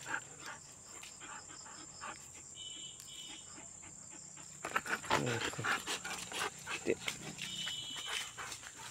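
A yellow Labrador and a German Shepherd panting hard, louder from about five seconds in.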